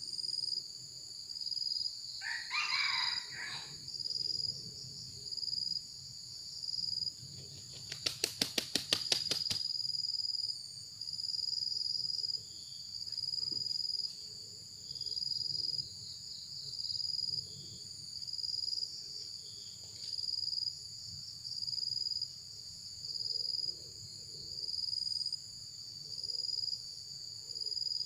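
Insects chirring in even pulses about once a second throughout, with a rooster crowing once, briefly, about two seconds in. A quick run of sharp clicks comes around eight seconds in.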